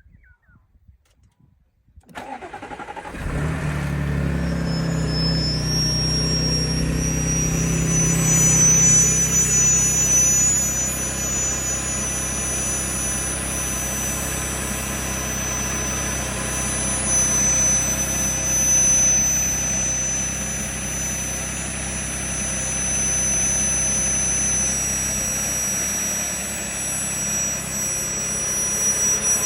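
Audi A6 C7's 3.0 TFSI supercharged V6 cranking and starting about two seconds in, running faster for several seconds and then settling to a steady idle. A high, thin whine rides over the idle: the strange noise the owner is asking about.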